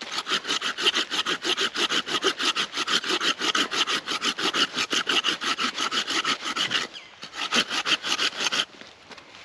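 Small hand saw cutting into a persimmon log in quick, even back-and-forth strokes, sawing a shallow ring around it to mark where the mallet's handle will be. The strokes pause briefly about seven seconds in, resume, and stop shortly before the end.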